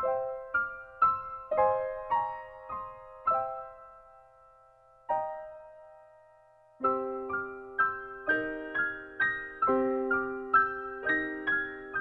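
Background piano music: single struck notes ringing out, thinning to a near pause in the middle, then a fuller passage with lower notes joining about two-thirds of the way in.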